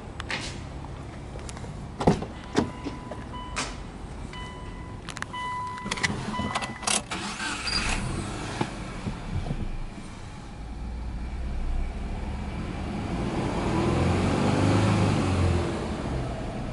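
Car door clunks open and shut, then an electronic warning chime beeps intermittently. About seven seconds in, the Subaru Legacy B4 2.0GT spec B's turbocharged EJ20 flat-four starts and runs, heard from inside the cabin. Its note rises and falls near the end.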